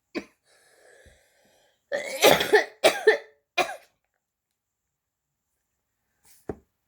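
A woman coughing: a short cough, then a fit of several loud, harsh coughs about two seconds in. The sound then drops out to dead silence, with a single sharp click near the end.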